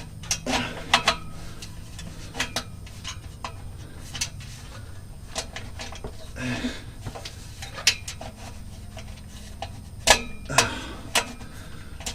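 Irregular metal clicks and knocks as steel exhaust pipe sections and clamp hardware are worked into place by hand, over a steady low hum.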